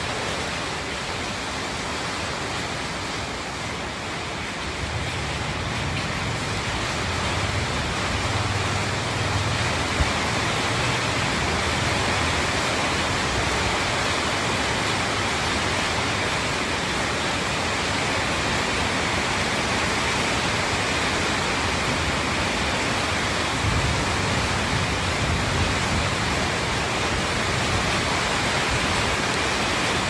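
Steady rain falling, an even hiss, with a low rumble coming and going underneath.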